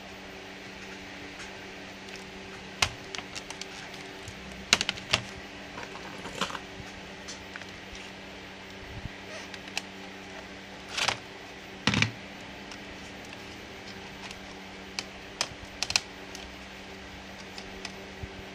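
Scattered clicks and taps of plastic and small metal parts as a Lenovo G570 laptop is taken apart, heaviest around three seconds in and again near the middle, over a steady low hum.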